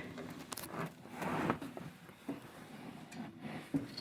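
Scattered clicks and light knocks with a rustling scrape about a second in: car interior trim and parts being handled and pulled out.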